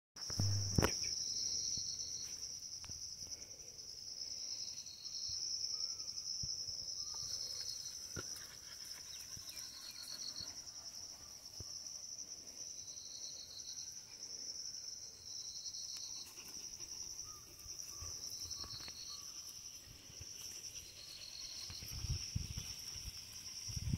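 Insects trilling steadily in a high, unbroken buzz, with a second, slightly lower insect chirp repeating about every two to three seconds.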